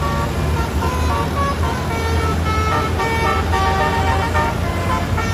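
Telolet multi-tone bus horn playing a tune of short notes that jump from pitch to pitch, over a steady low engine hum.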